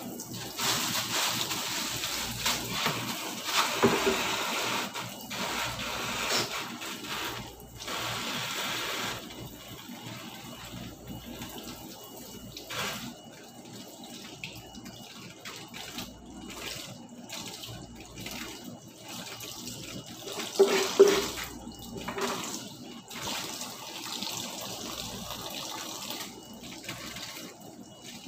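Kitchen tap running into a sink, the water splashing heavily for the first several seconds and then falling as a thinner stream. A single sharp knock sounds about two-thirds of the way through.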